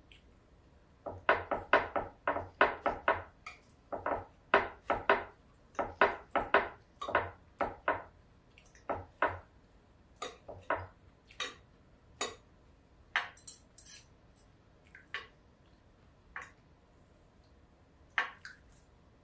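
Knife and fork clinking and scraping against a plate while cutting up food: a quick run of sharp clinks for about seven seconds, then scattered single clinks.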